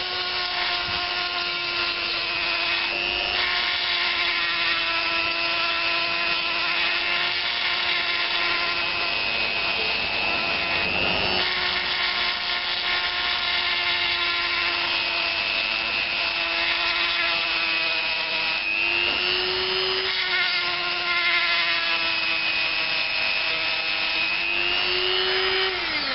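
Dremel rotary tool, driven through a flexible shaft, whining steadily as its bit grinds out the transfer ports of a Yamaha TY two-stroke cylinder. The pitch sags and recovers a little as the bit bites, and the motor stops near the end.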